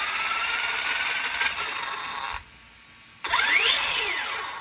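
Kyosho Mad Van VE RC monster truck's electric motor and drivetrain whining with its wheels spinning freely off the ground under throttle. A first burst rises in pitch and holds for about two seconds. After a short pause a second burst rises, then falls away as the wheels slow.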